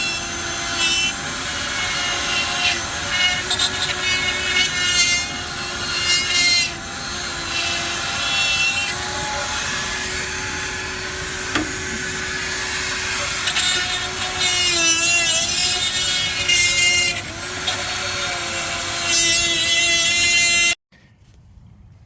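A machine running loudly, with a steady hum, a constant very high whine and shifting high squealing tones over it. It stops abruptly near the end.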